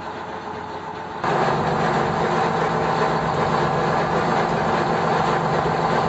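An engine running steadily, its sound jumping abruptly louder about a second in and holding a steady low hum.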